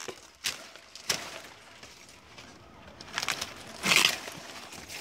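Sugarcane leaves and their dry sheaths crackling and tearing as they are stripped from the stalk by hand, in a few short rustling bursts, the loudest near the end.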